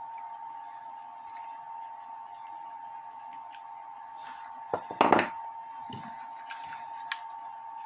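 Pliers and a small metal clock key clicking and clunking as the key's slotted end is squeezed shut, with a loud clatter of metal about five seconds in.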